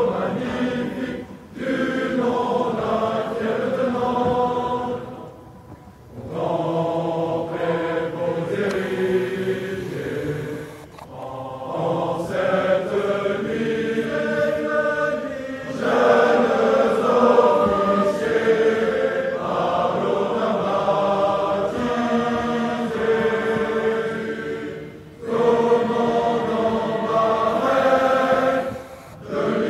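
Massed choir of officer cadets singing an a cappella ode in long phrases, with brief pauses between them.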